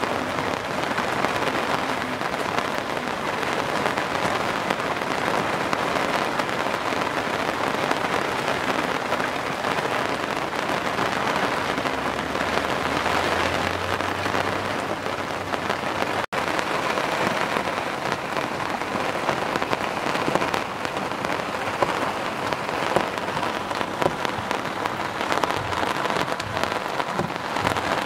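Pouring rain falling steadily on the water and boats, an even hiss with a split-second break about halfway through.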